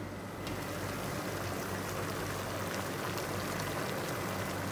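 Chicken pieces simmering in their own released juices in a pot, a steady bubbling hiss as the liquid cooks down.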